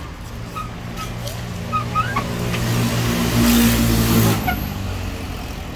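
A motor vehicle passing close by. Its engine hum and tyre hiss build up, are loudest about three and a half to four seconds in, then fade away.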